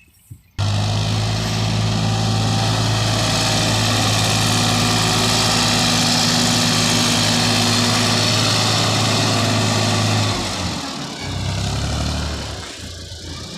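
Diesel engine of a JCB backhoe loader running steadily, coming in abruptly about half a second in. About ten seconds in it falls to a lower pitch and goes quieter.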